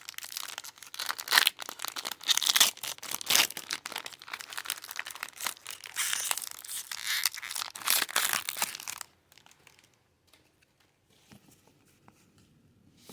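A foil Pokémon booster pack wrapper being torn open and crinkled, a dense run of tearing and crackling that stops about nine seconds in.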